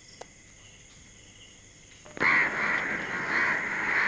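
Faint insect chirring, then about two seconds in crows start cawing loudly and repeatedly.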